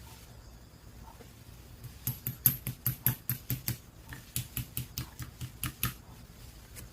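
A rapid run of sharp clicks or taps, several a second, starting about two seconds in and stopping near the end, over a faint room hiss.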